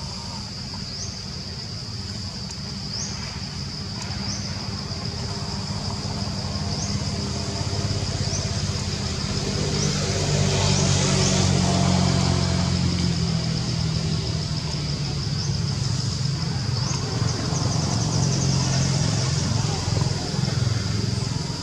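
A motor vehicle's engine hums low, growing louder toward the middle with a rush of noise, then keeps running. Over it, a steady high insect whine with short rising chirps.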